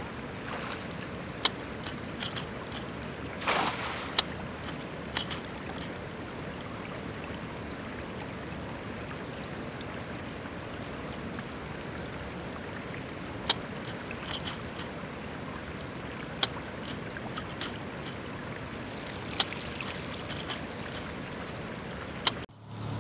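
Steady outdoor hiss of water and wind with scattered small clicks; about three and a half seconds in, a brief splash as a cast net lands on the water.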